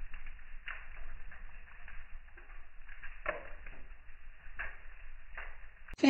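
Wood fire crackling in a stone fire pit: irregular sharp pops and snaps, the loudest about three seconds in, over a low steady rumble.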